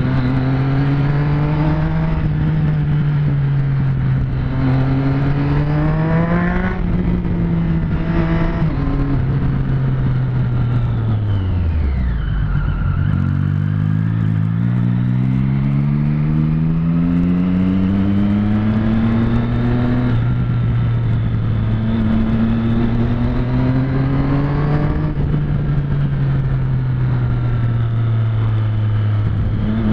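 Motorcycle engine under way, its pitch climbing through the gears with shifts between. About twelve seconds in it falls almost to idle as the bike slows, then it pulls away again, with wind noise on the microphone.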